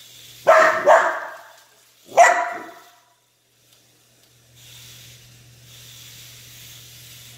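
Aussiedoodle puppy barking: two quick barks about half a second in, then one more bark a little after two seconds. From about four and a half seconds in, a faint steady hiss with a low hum.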